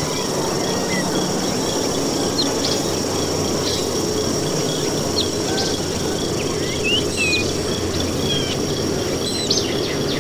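Jungle ambience: scattered short chirps and gliding whistling calls over a steady high-pitched insect-like drone and a low noisy bed, the calls coming more often in the second half.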